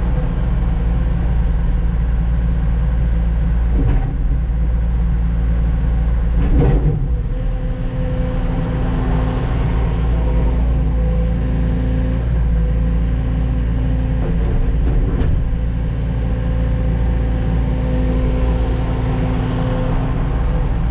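Heavy diesel engine running steadily during log loading. A few knocks stand out, the loudest about a third of the way through, as logs are grabbed and set down.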